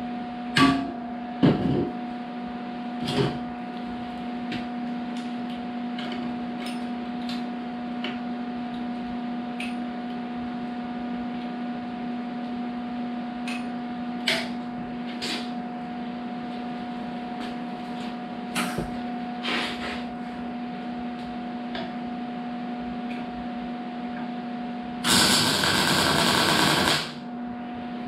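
A hammer knocking three times on a stainless-steel muffler pipe in the first few seconds, then scattered light metal clicks over a steady hum. Near the end comes a loud two-second burst of welding that starts and stops sharply, tacking the pipe to the muffler.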